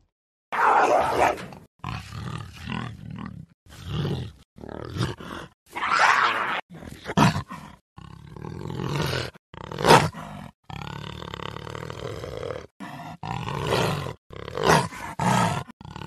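Cougar (puma) vocalising: a series of about a dozen short, rough calls with brief gaps between them.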